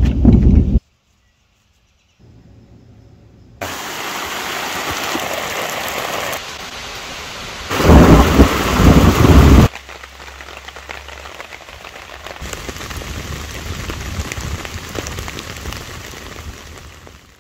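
Thunderstorm sounds in abruptly cut sections. A loud thunderclap at the start stops suddenly, and after a short gap heavy rain sets in as a steady hiss. A second loud burst of thunder over the rain comes about eight seconds in, then the rain carries on and fades out near the end.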